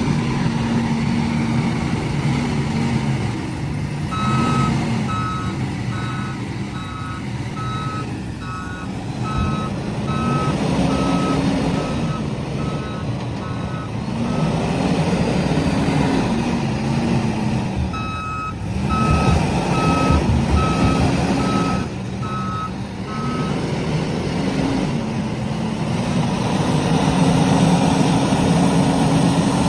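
Diesel engine of a heavy earthmoving machine running under load, its pitch rising and falling as it works. A reversing alarm beeps about twice a second in two spells: from about four seconds in for some ten seconds, and again for about five seconds from eighteen seconds in.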